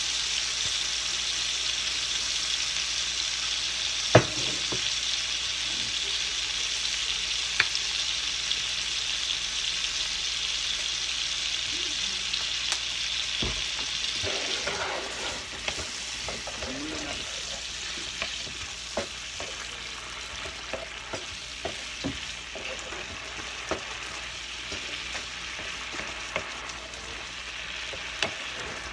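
Shrimp frying in hot oil in a skillet, a steady sizzle that eases off about halfway through. A wooden spatula stirs the pan, with scattered sharp taps and scrapes against it, the loudest tap about four seconds in.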